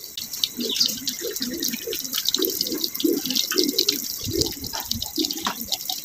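Water running and sloshing with irregular gurgles as dry corn kernels are rinsed in a basin of water, a hose running beside it.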